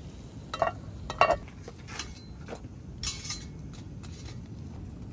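Cast-iron lid set down on a cast-iron pot: two sharp metallic clinks about half a second apart, a little under a second in. A short rough scrape follows about three seconds in.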